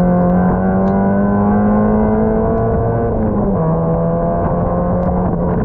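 Mazda MX-5 race car's four-cylinder engine running under load, heard from inside the cockpit. Its pitch climbs slowly, drops about three seconds in, then holds steady.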